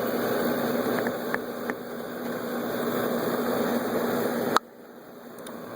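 Steady mechanical hum and hiss, like a fan or air-conditioning unit, with a few faint clicks of parts being handled. It cuts off suddenly about four and a half seconds in.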